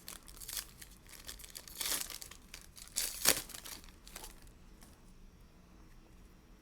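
Crinkling and tearing of a trading-card pack wrapper as a pack of Donruss basketball cards is opened and handled. It comes in several short bursts, the loudest a little after three seconds in.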